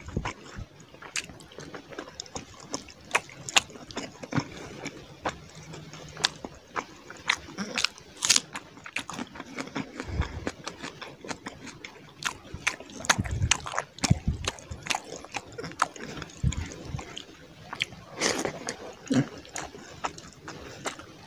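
Close-up eating sounds of a mukbang meal of fish curry and rice: wet chewing and lip-smacking, heard as a dense run of sharp, wet clicks with a few low thumps in between.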